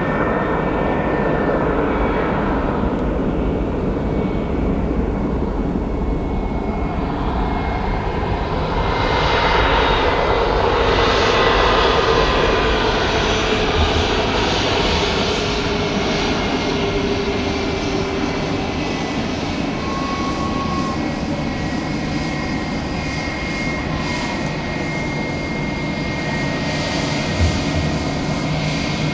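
Airbus A321-100 jet engines running as the airliner moves along the ground past the listener: a continuous rumble with a steady whine, swelling to its loudest about ten to twelve seconds in, then easing.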